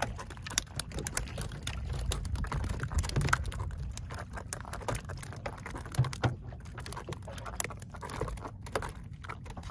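Small boat at sea: irregular light taps and clicks over a steady low rumble, with no clear rhythm, while a handline is hauled in over the side.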